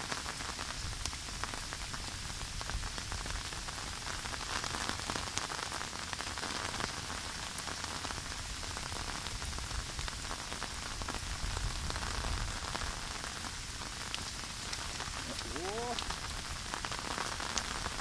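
Heavy rain falling steadily, pattering on the ground and foliage and ticking on an umbrella just above, with wind gusting on the microphone as a low rumble. A brief rising chirping call sounds about sixteen seconds in.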